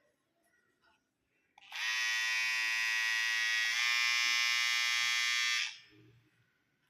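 Battery hair trimmer switched on and running for about four seconds, a steady high electric buzz that shifts slightly in pitch about halfway, then switched off.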